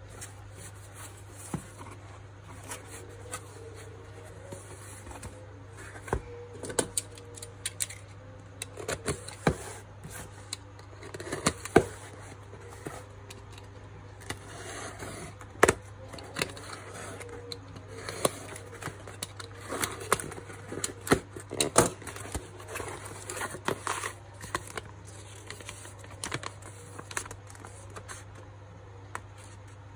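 Cardboard parcel being opened by hand: a utility knife slitting the packing tape, with irregular clicks, scrapes and knocks of cardboard and paper being handled.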